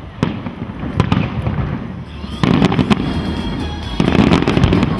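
Aerial fireworks shells bursting: a few separate sharp bangs, then from about halfway a dense run of rapid bangs and crackling.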